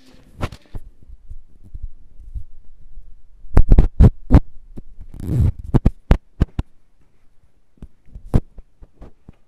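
Handling noise from a handheld camera being moved fast: a run of irregular low thumps and knocks on the microphone, loudest in a cluster from about three and a half to six and a half seconds in.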